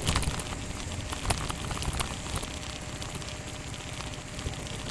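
Motorcycle engine running low and steady on a slippery muddy descent, with scattered clicks and crackles from the tyres on the wet track. The sharpest clicks come at the very start and about a second in.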